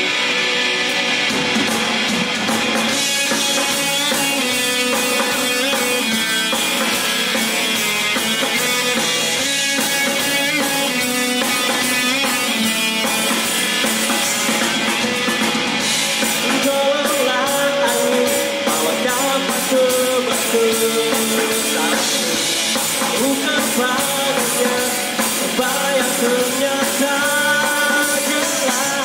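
Live amplified rock band playing a song: electric guitar, bass guitar and drum kit, with a man singing. The drums come in about a second in.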